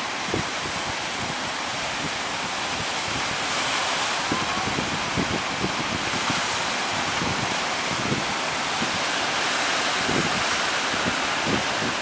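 Ocean surf breaking steadily, swelling twice, with wind buffeting the microphone.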